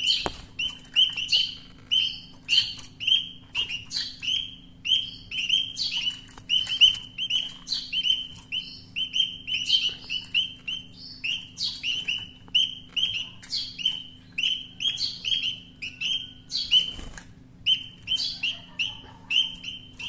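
Caged nestling birds chirping, a rapid unbroken series of short high chirps about three a second, pausing briefly near the end.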